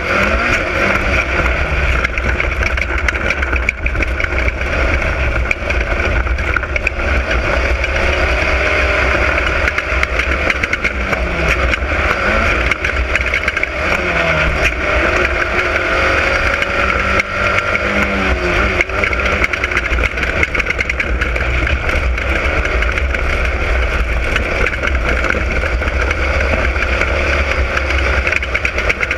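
Class 10 off-road race car's engine running hard at speed, its revs rising and falling repeatedly, over a constant low rumble and many short knocks.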